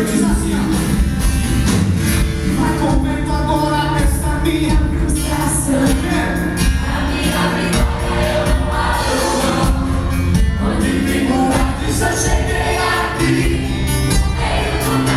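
A Christian worship song: several voices singing together over a band with a steady beat.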